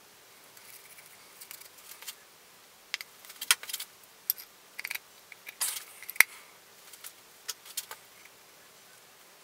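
Sharp metallic clicks and clinks of steel engine parts being handled by hand: a connecting-rod cap and its bolts on the crankshaft of a BMW M54 straight-six. They come in scattered, irregular taps, busiest in the middle, with the loudest clink about six seconds in.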